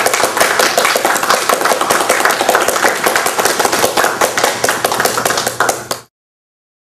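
Applause: many hands clapping densely and unevenly, cutting off suddenly about six seconds in.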